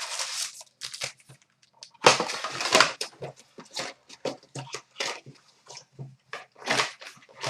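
Trading-card box packaging being torn open and crinkled: a series of short rips and crackles, the longest and loudest about two seconds in.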